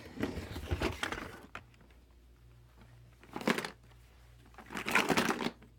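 Handling noise from rummaging through a container of small toy tractors: rustling and light clatter for the first second and a half, then two more short bursts, about three and a half and five seconds in.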